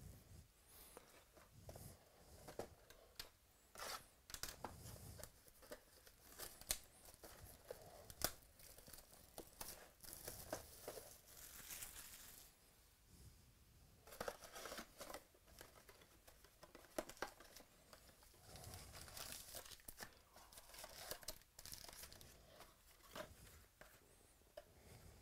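Faint tearing and crinkling of plastic wrapping as sealed hobby boxes of football trading cards are opened, with scattered taps and rustles as the card packs are pulled out and stacked.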